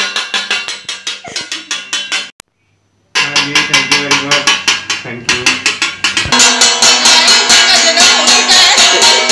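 Stainless-steel pot lids beaten rapidly with steel spoons, about five ringing clangs a second. The clanging stops briefly about two and a half seconds in, then starts again, growing louder and denser from about six seconds in.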